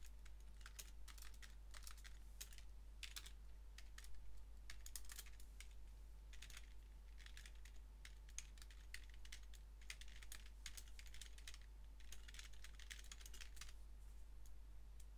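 Computer keyboard typing: a faint, irregular run of key clicks as code is entered.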